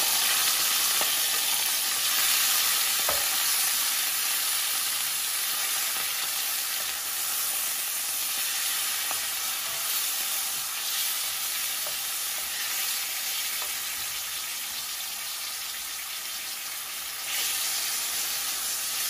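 Marinated chicken thigh pieces sizzling in hot oil in a smoking-hot wok, stirred with a wooden spatula that clicks against the pan now and then. The sizzle slowly fades, then swells louder again near the end.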